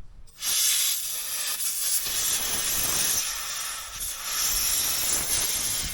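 Compressed-air blow gun hissing as it blows out the tractor's engine area, starting about half a second in with a few brief dips in force.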